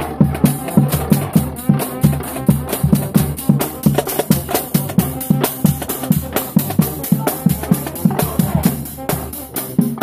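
Marching band drumline playing a stand cheer: bass drums, tenor drums and cymbals in a fast, driving pattern, several hits a second with cymbal crashes over the top.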